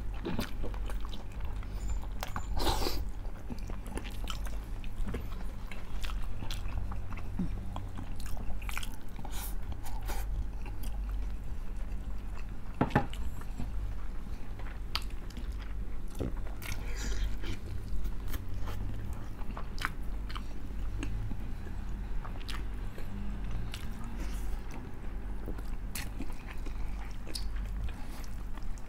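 Close-miked eating: chewing and biting with scattered crunches and mouth clicks throughout, over a steady low hum.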